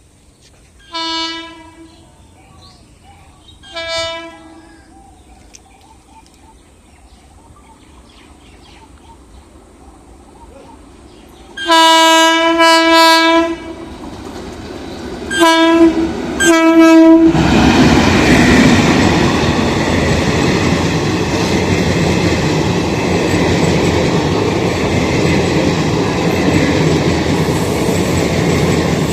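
Indian Railways locomotive horn giving two short, fainter blasts, then about eight seconds later a long loud blast followed by two short ones. The train then passes close by with a steady loud rush of wheels on the rails.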